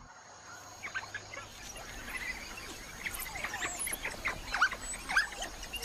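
African wild dogs' high-pitched, bird-like twittering: many short squeaky chirps that glide up and down in pitch, starting about a second in.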